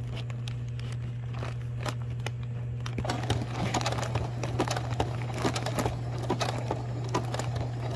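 Home sewing machine stitching a zigzag seam through ripstop nylon kite fabric: a steady motor hum under irregular needle clicks, with the fabric crinkling as it is fed. The stitching and crinkling get busier about three seconds in.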